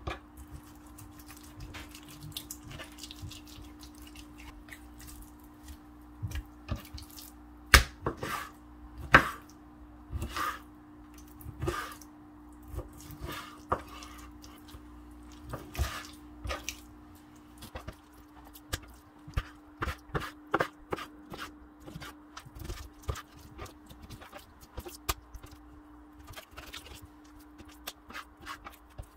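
Chef's knife cutting raw chicken breast on a wooden cutting board: irregular taps and knocks of the blade against the board, with two louder knocks about eight and nine seconds in. A steady low hum runs underneath.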